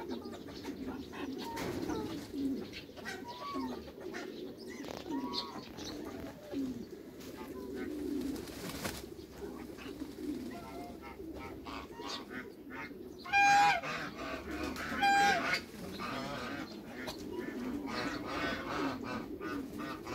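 A flock of pigeons cooing steadily in the background. About two thirds of the way through, another bird gives two short, loud calls about a second and a half apart.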